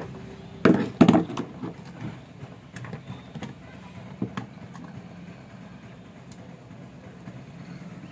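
Handling knocks and clunks from a metal amplifier cabinet being lifted and turned over, the two loudest about a second in, then a few lighter knocks, over a steady low background rumble.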